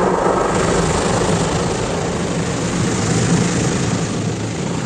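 Automatic car wash heard from inside the car: a steady mechanical drone from the wash machinery, with water and foam spraying on the glass and a rotating brush sweeping over the windshield near the end.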